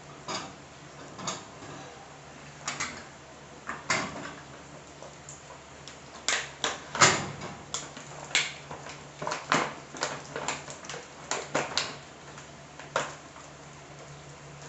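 Sharp clicks and knocks as metal burner caps are set onto a gas range's stovetop, followed by a denser run of clicking and crackling as a clear plastic packaging tray is handled. A steady low hum runs underneath.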